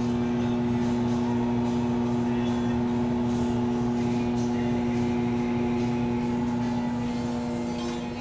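Steady machinery hum in a steamship's engine room: a constant drone made of several fixed tones over a low rumble, easing off slightly near the end.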